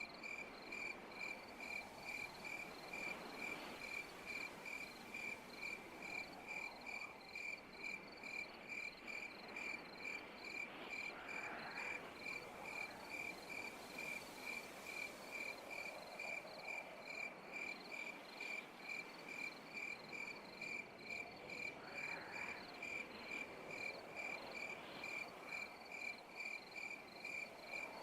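Night insects chirping: one insect keeps up a steady, even rhythm of high chirps, about two to three a second, over a faint hiss of other insects.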